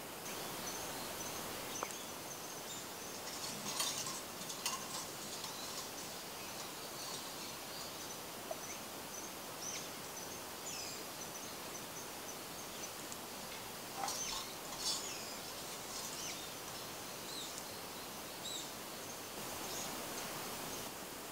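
Outdoor woodland ambience: a steady background hiss with faint, high bird chirps scattered throughout, and a few brief rustles a few seconds in and again about two-thirds of the way through.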